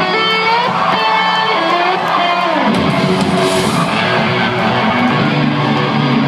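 Live rock band playing an instrumental passage, led by electric guitars, between sung lines.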